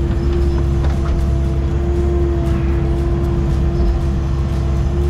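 Excavator's diesel engine running steadily under load, heard from inside the cab, with a steady whine over its low rumble while the arm and bucket work.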